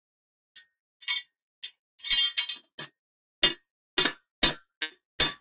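Small bar tapping the bit bearing out of a Secoroc COP M6 down-the-hole hammer: about a dozen sharp metal-on-metal clinks at an uneven pace, growing louder from about two seconds in and coming about two a second near the end, as the bearing is knocked loose.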